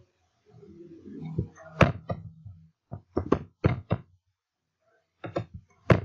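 Computer mouse clicking, about ten sharp clicks in quick pairs and small groups.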